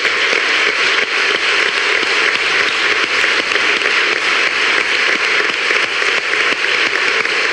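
Crowd applause: a packed room of people clapping steadily, a dense even sound of many hands with no let-up.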